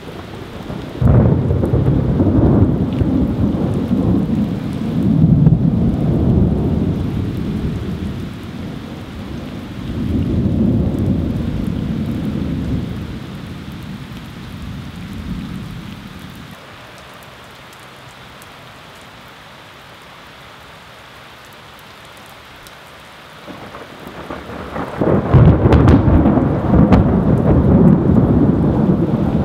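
Heavy rain hisses steadily throughout. About a second in, a sudden thunderclap is followed by deep thunder rumbling in waves for about fifteen seconds. After a stretch of rain alone, a second loud thunderclap comes near the end and keeps rumbling.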